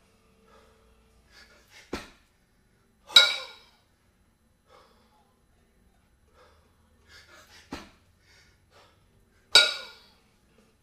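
Two 22 kg kettlebells clanking together during double kettlebell jerks: twice, about six seconds apart, a sharp metallic clank with a brief ring, each coming about a second after a softer knock. Short hard breaths are heard between the reps.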